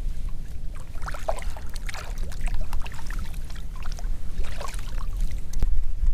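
Water splashing and sloshing against a fishing boat in two irregular spells, over a steady low rumble, with one sharp knock near the end.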